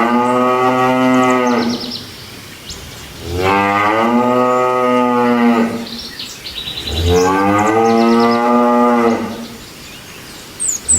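Cattle mooing: three long, loud moos about two seconds each, with short pauses between them, the first already under way at the start.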